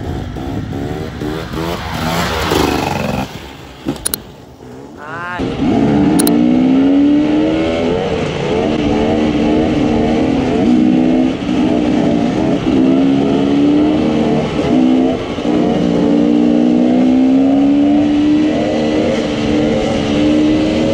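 Enduro dirt bike engines revving during wheelies. The pitch rises and falls with the throttle. About five seconds in, a close engine note rises sharply and then holds, wavering up and down, as a bike is kept up on its back wheel.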